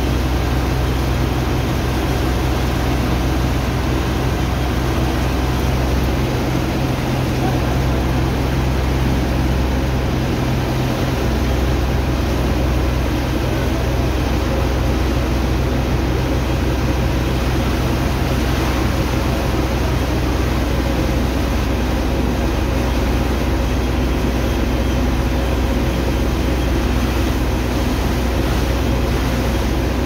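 A water pump's engine running steadily, with the rushing hiss of a high-pressure water jet from a hose blasting into wet sand.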